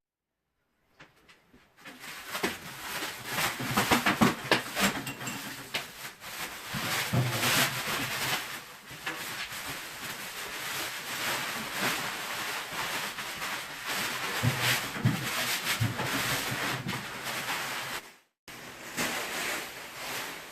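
Irregular rustling, clatter and knocking from things being handled and unpacked, with many small clicks and bumps. It breaks off abruptly for a moment near the end.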